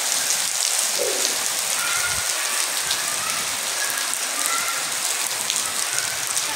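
Heavy rain pouring steadily onto a wet concrete courtyard, a constant even hiss of drops splashing on the paving and standing water.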